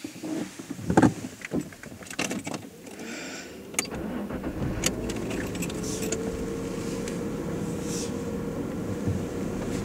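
A few knocks and clicks, then a car engine starts about four seconds in and runs steadily.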